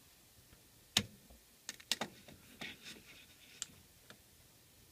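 Metal clicks and knocks from a dial indicator being set up and brought against a lathe's tool post: one sharp knock about a second in, then several lighter ticks and taps.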